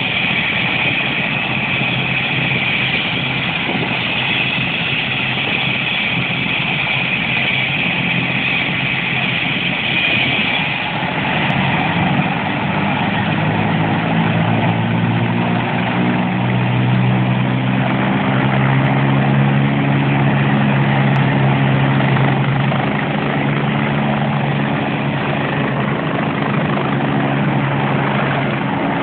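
Rescue helicopter's turbine engine and main rotor running on the ground before lift-off. A high turbine whine lasts about the first ten seconds, then the low hum and beat of the rotor grow stronger and a little louder.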